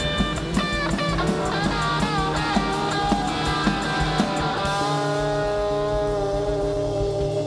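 Live rock band of electric guitars and drum kit playing with a steady beat; about two-thirds of the way through, the drums stop and held notes ring on.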